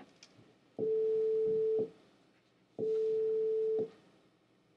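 A steady pure tone of one pitch, played twice for about a second each, two seconds apart, each a step quieter than the last: a loudness demonstration in which the tone keeps the same pitch and falls in 1-decibel steps.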